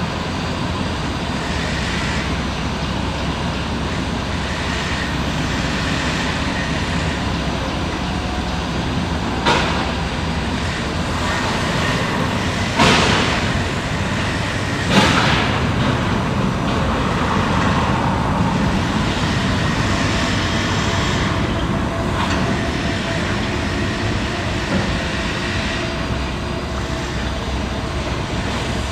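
Steady mechanical noise of heavy machinery running, broken by three sharp knocks: one about a third of the way in and two near the middle.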